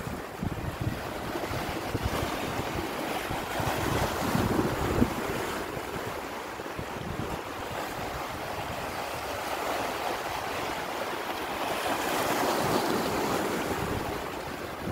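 Sea surf washing over and around shoreline rocks, a steady hiss of breaking water that swells louder twice, about four seconds in and again near the end, with wind gusting on the microphone.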